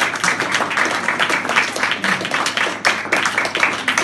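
Small audience applauding: a steady, dense run of hand claps.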